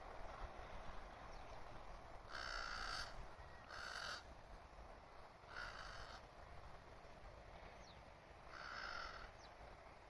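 A crow cawing four times, each caw under a second long, the first three about a second and a half apart and the last after a longer gap.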